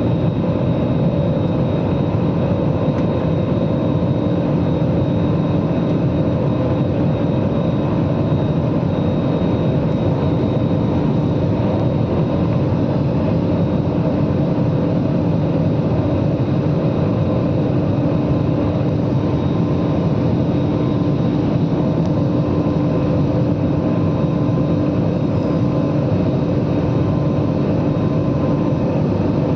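Steady jet engine and airflow noise heard inside an airliner cabin after takeoff, a dense even drone with a few steady humming tones on top.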